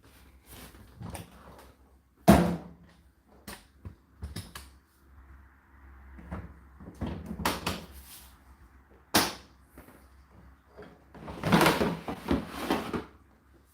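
Indesit IDC8T3 condenser tumble dryer running, with laundry tumbling in the drum in irregular thuds and knocks over a faint low hum. The loudest knocks come about two seconds in, about nine seconds in, and in a longer cluster near the end.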